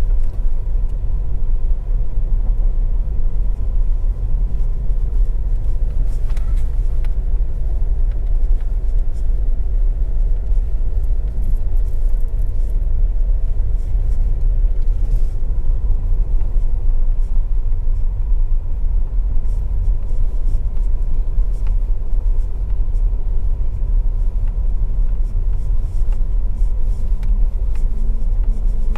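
Ford EcoSport driving along a rough unpaved track, a steady low road and tyre rumble.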